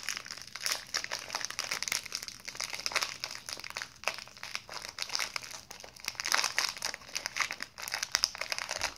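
Snack wrapper crinkling and crackling in the hands, handled steadily as it is worked open.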